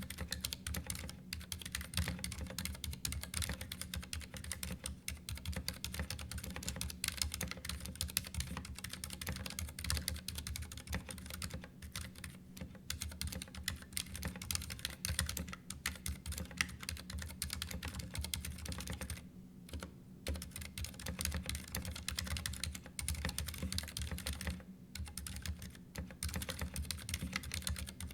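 Continuous fast typing on a Ducky One 2 Mini mechanical keyboard: a dense stream of key clicks and clacks, with a couple of brief pauses.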